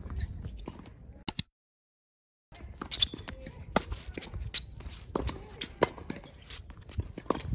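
Tennis rally on a hard court: the ball struck by racket strings and bouncing on the court, with feet shuffling between shots. The sound drops out to silence for about a second, about one and a half seconds in.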